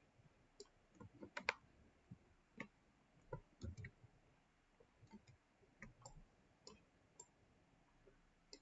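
Faint, irregular clicks of a computer mouse, about a dozen scattered through, over quiet room tone.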